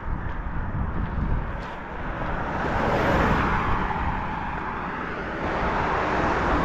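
A car passing on the road, its tyre and engine noise swelling to the loudest point about halfway through and fading, then rising again near the end as another vehicle approaches.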